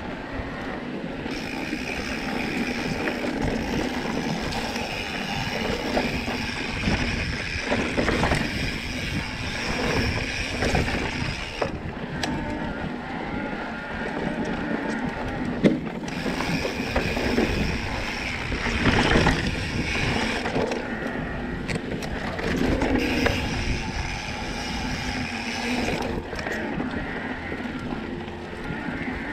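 Mountain bike being ridden along a dirt trail: steady tyre and wind noise on the rider's camera, with small clicks and rattles from the bike over bumps and one sharp knock about halfway through.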